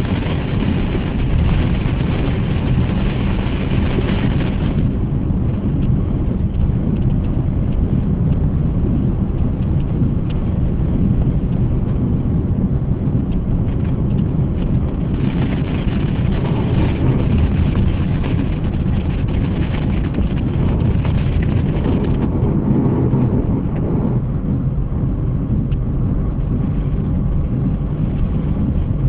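Steady in-car driving noise: a low rumble of the engine and tyres on a wet road, heard from inside the cabin in heavy rain.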